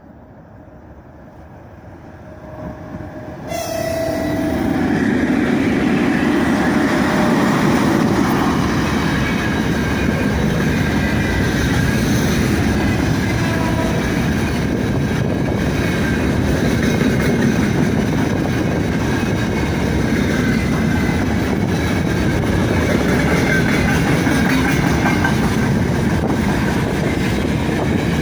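A 3ES5K 'Ermak' electric freight locomotive and its freight wagons approaching and passing close by. The sound is faint and slowly swelling, then about three and a half seconds in it jumps to a loud, steady rumble of wheels rolling on the rails with clickety-clack.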